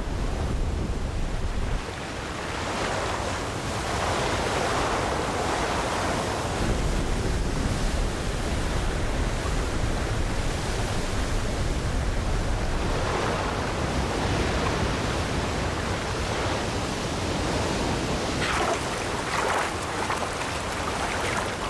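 Steady, loud rush of white water from a large waterfall.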